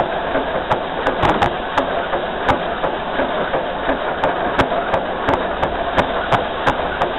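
Steam locomotive No. 192 rolling along the track, heard from its pilot: a steady running rumble with frequent irregular knocks of the wheels over the rails.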